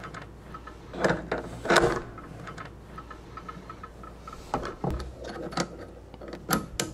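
Steel tooling on a magnetic drill being knocked and clinked by hand as the Morse taper 3 arbor is drawn out of the spindle and a tapping chuck with its tap is fitted: a few separate metal knocks, then a quicker cluster near the end, over a steady low hum.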